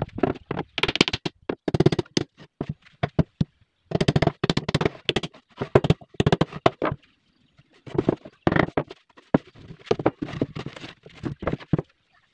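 Plywood speaker-box panels knocking and tapping as they are handled and fitted together on a wooden bench, in clusters of quick sharp knocks separated by short gaps.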